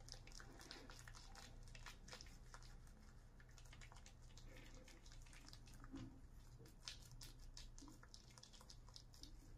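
Faint wet squishing and crackling of shaving lather being smeared over the face with the fingers, as a quick run of small soft clicks.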